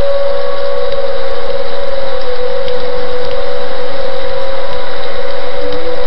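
Outdoor civil defense warning siren sounding a loud, steady wail that sags slightly in pitch partway through, a severe-weather warning signal, over the rush of heavy rain.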